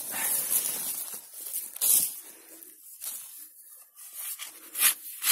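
Garden spade digging into loose soil: scraping and crumbling of earth and roots, with two sharper strokes about two seconds in and near the end.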